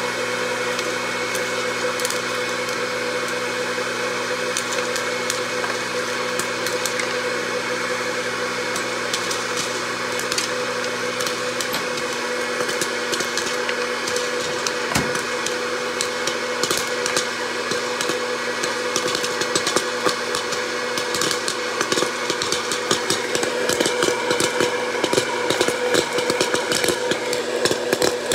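Hot-air popcorn popper running with a steady fan hum. Kernels start popping about halfway through, and the pops come faster toward the end.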